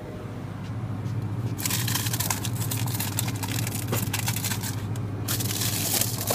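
Crinkling, crackling rustle of close handling noise, starting about one and a half seconds in with a brief break about five seconds in, over a steady low hum.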